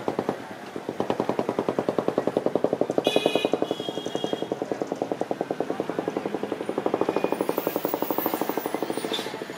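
A small engine idling close by with a rapid, even putter of about nine beats a second, going on until near the end. A brief high beep cuts in about three seconds in.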